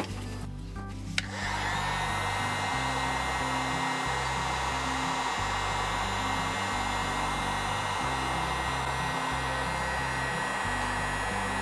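Electric hot-air blower switched on with a click about a second in, then running steadily while heating a newly applied decal.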